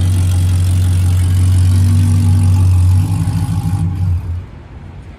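A V8 car engine running steadily at a low, even note, then switched off a little over four seconds in.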